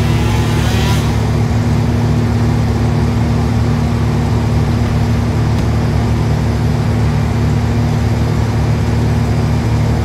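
Engine of tree-removal equipment running steadily with a loud, even drone; a higher wavering whine over it stops about a second in.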